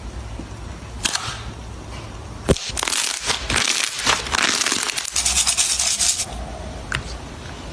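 Slime being handled by hand, making crackly, crinkling squishes in two longer stretches in the middle, with a few sharp clicks, over a low steady hum.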